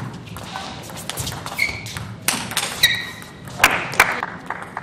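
Scattered sharp taps and knocks in a large hall, between table tennis rallies, with a few short high squeaks of the kind shoes make on a sports floor.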